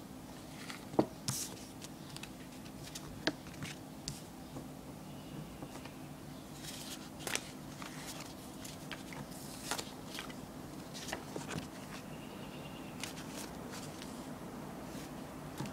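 Scattered light clicks and short rustles of handling noise over a steady low hum, the sharpest click about a second in.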